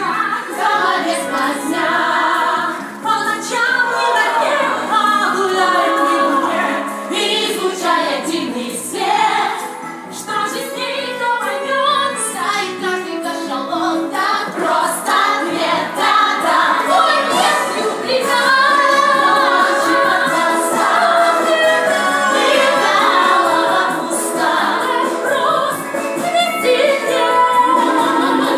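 A song from a stage musical: voices singing together over musical accompaniment.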